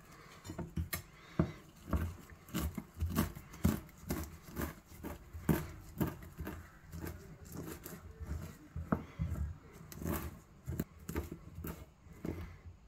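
Kitchen knife chopping fresh rosemary on a plastic cutting board: irregular quick taps of the blade striking the board, a few a second.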